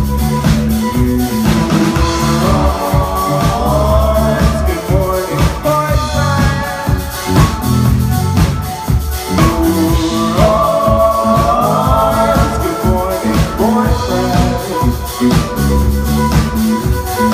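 Live band playing a pop-rock song, with sung lines that glide between notes over a steady drum beat.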